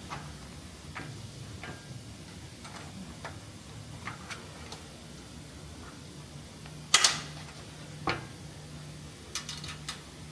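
Light metallic clicks and taps of bolts and aluminium roof-rack parts being handled and fitted finger-tight, with a loud sharp metal clatter about seven seconds in, another about a second later, and a quick run of ticks near the end.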